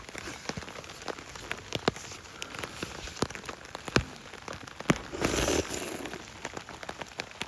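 Rain falling on a tent, many drops tapping irregularly on the fabric, with a short burst of rustling about five seconds in.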